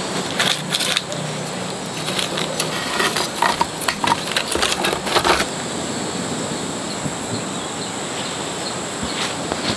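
Firewood knocking and crackling as a small wood fire is laid and lit under an iron trivet: a run of sharp clicks and knocks for about five seconds, then only a steady background hiss.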